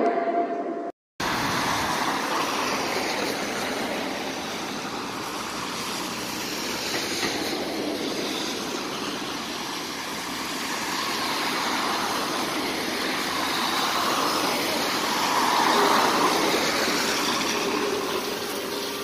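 Street traffic on wet asphalt: a steady hiss of tyres on the wet road, starting after a moment's silence about a second in. The hiss swells a little near the end as a trolleybus draws in close.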